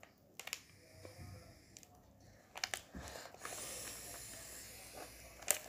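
Foil card packets being handled: faint rustling with a few short crinkles.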